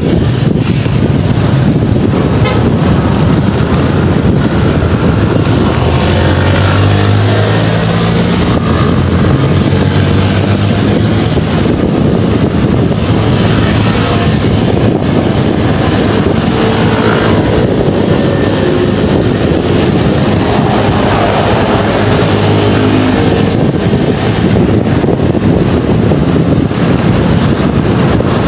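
Road traffic heard while riding a bicycle along a highway: heavy wind rush on the microphone, with a motor vehicle's engine passing about six seconds in and another about twenty seconds in.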